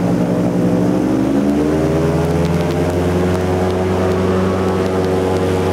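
Airboat engine and propeller running at speed, the pitch rising about a second in and then holding steady.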